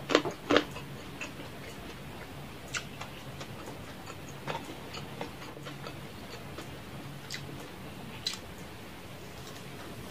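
Close-up eating sounds: sharp wet clicks and smacks of a mouth chewing and fingers picking at fried chicken and noodles, two loud ones just after the start, then sparse fainter ones every second or two. A low steady hum runs underneath.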